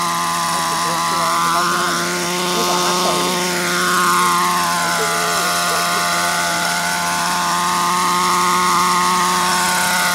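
Small gasoline two-stroke engine of an Align T-REX 700 DFC radio-controlled helicopter running at a steady speed in flight, together with its spinning rotor. The tone sweeps and phases as the helicopter lifts off and moves about close by.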